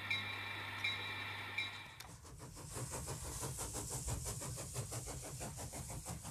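Sound from an N scale Broadway Limited EMD E9 model locomotive's onboard speaker. First a steady diesel hum with a click about every three-quarters of a second, then, about two seconds in, a sudden switch to a faster, rhythmic rumble.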